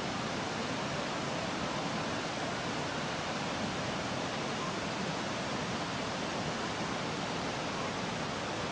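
Water rushing steadily and evenly, with no breaks.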